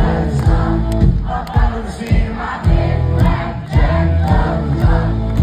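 Live country band playing loudly with a steady drum beat about twice a second, heavy bass and singing, with many crowd voices mixed in.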